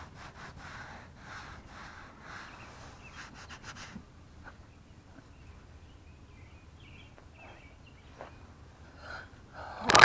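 Applicator pad rubbing back and forth over black plastic bumper trim in repeated strokes for about the first four seconds, then quieter. A sharp knock near the end.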